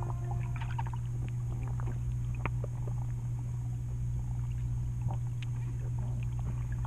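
Underwater ambience picked up by a submerged camera: a steady low hum with many faint, scattered clicks and ticks.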